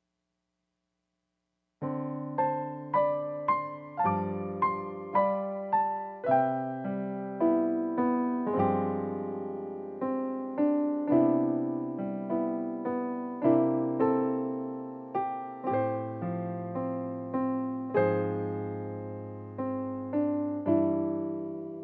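Background piano music, a gentle melody of single struck notes, starting about two seconds in after silence.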